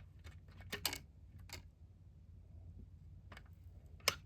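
Sharp plastic clicks and taps from handling a robot vacuum's dustbin, a few scattered clicks with the loudest about a second in and near the end.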